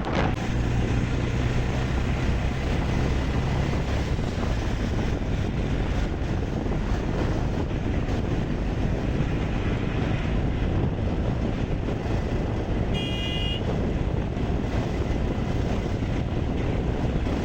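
Steady road and wind noise from a moving vehicle on the road, with a low engine hum that fades about four seconds in. A brief high-pitched horn toot sounds about 13 seconds in.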